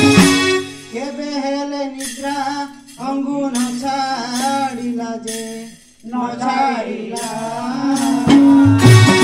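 A singer sings a devotional song in three long, melismatic phrases over a held harmonium note. The full group, harmonium with drum beats, plays just before and comes back in near the end.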